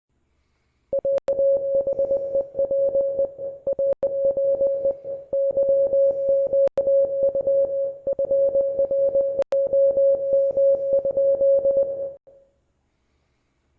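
Morse code sent as a single steady tone keyed rapidly on and off in dots and dashes. It starts about a second in and runs for about eleven seconds, with a few sharp clicks along the way.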